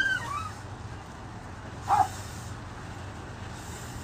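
A dog gives a short yelp at the start and one sharp bark or yip about two seconds in, over a steady low engine hum.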